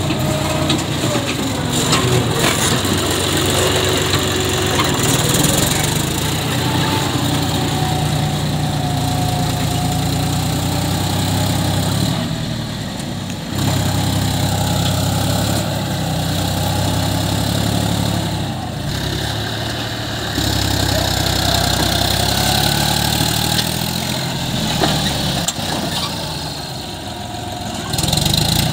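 John Deere tractor's diesel engine running under load as its dozer blade pushes wet mud, easing off briefly a couple of times midway.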